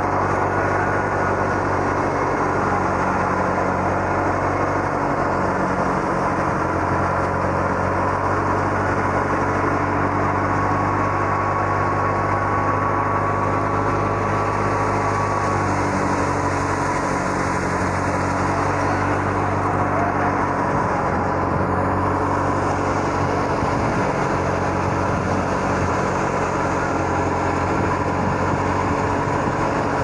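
Tractor-powered wheat thresher running steadily: the tractor engine's even drone and the threshing machine turning at constant speed.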